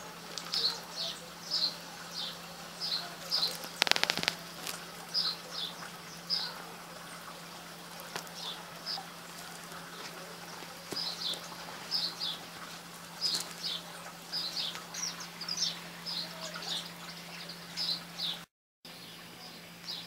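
Sparrows chirping, short high notes repeated about twice a second in runs with brief pauses. There is a sharp knock about four seconds in, and a faint steady hum underneath.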